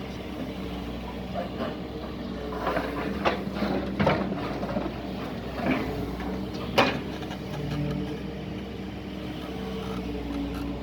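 Doosan DX140 excavator working: its engine runs steadily while several sharp knocks and clanks sound, the loudest about seven seconds in.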